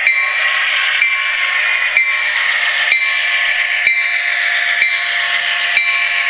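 Model F7 diesel locomotive running with its onboard sound: a steady, thin engine hiss with a few faint steady tones, from a small speaker with no bass, and a light click about once a second.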